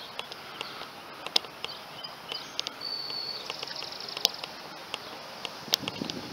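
Footsteps on asphalt, heard as irregular sharp clicks, with high chirps and a short buzzy trill from small birds about halfway through.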